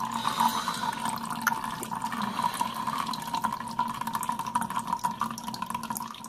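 Two thin streams of water pouring and trickling into plastic cups in a stainless steel sink: the clean-water and wastewater outlets of an APEC countertop reverse osmosis filter running at full tap pressure. A steady tone sits under the splashing.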